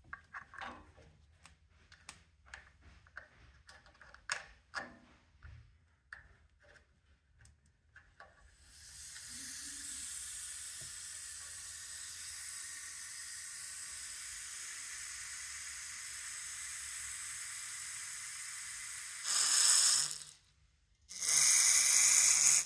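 Light clicks and knocks of small parts being handled at a radiator bleed valve, then a steady hiss of air escaping from the opened valve for about ten seconds. It ends in two short, much louder sputtering bursts, typical of water starting to spit out once the trapped air is gone.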